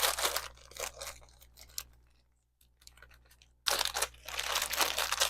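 Packaging crinkling and rustling as it is handled, in a burst early on, then a brief lull, then louder, steady crinkling from about two-thirds of the way in.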